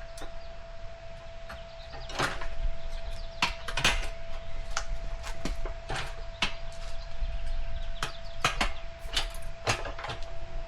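Irregular clicks, knocks and short scrapes of tire levers working a dirt bike tire's bead onto a cast aluminum rim, with a faint steady hum underneath.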